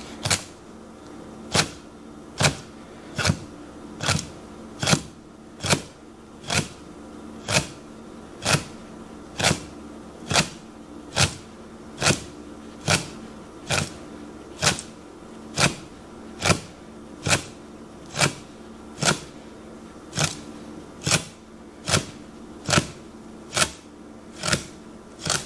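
A heavy knife makes honekiri cuts across a pike conger (hamo) fillet, each stroke ending in a sharp tap on a wooden cutting board. The strokes keep an even rhythm, a little more than one a second. Each cut severs the fish's fine bones down to the skin while leaving the skin whole.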